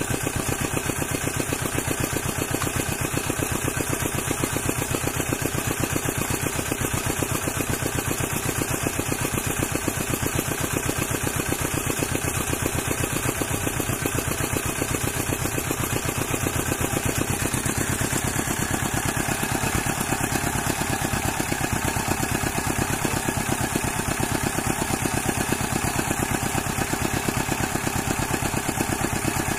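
An engine running steadily, with an even, rapid pulse and a slight change in its tone about two-thirds of the way through.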